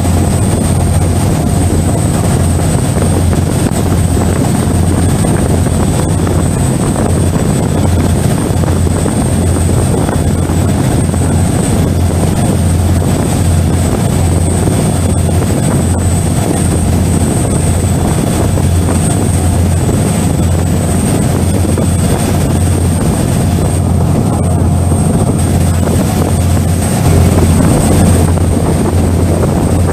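Passenger ferry's engines droning steadily while under way, loud and unbroken, with a thin high whine over the low hum.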